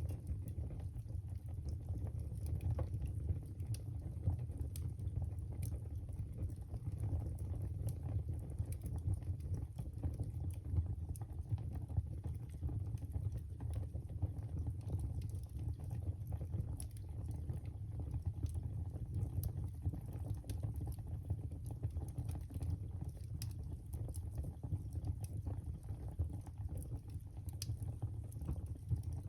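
Wood fire burning in a fireplace: a steady low rush of flame with frequent sharp crackles and pops at irregular intervals.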